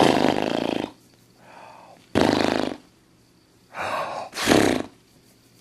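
A person making a series of short breathy vocal sounds, about five with pauses between, the first lasting about a second and two coming close together near the end.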